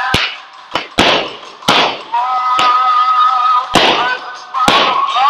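Aerial fireworks going off: five sharp bangs, each with a crackling, hissing tail. From about two seconds in, a steady held tone with several pitches sounds under the bangs.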